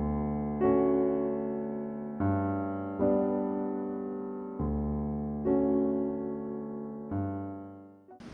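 Background music: slow electric piano chords, each struck and left to ring, fading out near the end.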